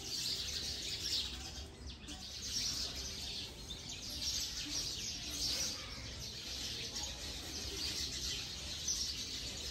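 A flock of birds gathered in a tree in the evening to roost, many chirping and calling at once in a busy, overlapping chorus of short high chirps.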